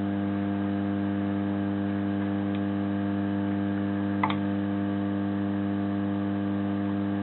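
Hot-air soldering station gun running at maximum air: a steady electrical hum with a hiss of blowing air. A single faint click about four seconds in.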